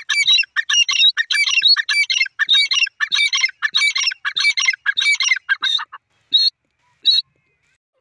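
Francolin (teetar) calling: a fast run of loud, harsh repeated notes, about two phrases a second, breaking off about six seconds in, followed by two single short notes.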